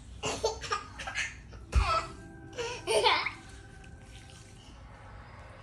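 A person laughing in several short bursts over the first three seconds, then quieter.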